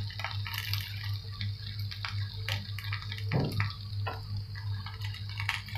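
Wet spinach leaves sizzling in hot oil in a kadai, with irregular crackles and pops as the water on the leaves meets the oil. A steady low hum runs underneath.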